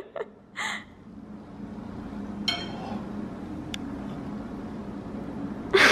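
A fork clinks once against a ceramic plate about two and a half seconds in, over a steady low hum. There is a short puff of breath before the first second, and a brief louder noise near the end.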